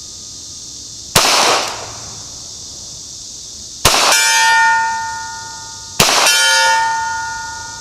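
Three shots from a 9mm Ruger PC Carbine, about two and a half and then two seconds apart. The first has no ring after it. The second and third are each followed by the long, fading ring of an AR500 steel target being hit.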